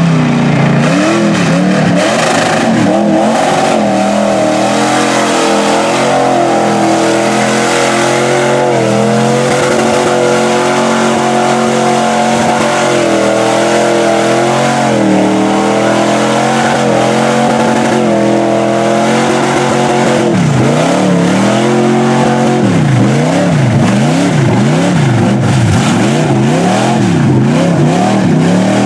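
Mud truck on tractor tires, its engine run hard through a mud pit. The pitch stays high and wavers for most of the time, then swings up and down in repeated revs near the end as the tires dig in.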